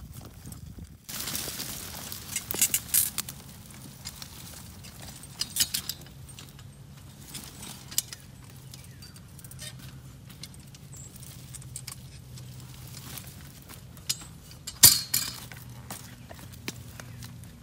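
Metal clanks and rattles from a garden dump cart being handled on wood-chip mulch, a few sharp clanks with the loudest near the end, over a low steady hum.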